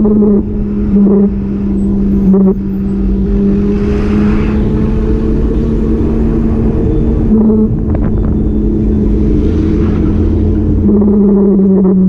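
A motor vehicle's engine running steadily with road rumble, its drone dipping slightly in pitch near the end.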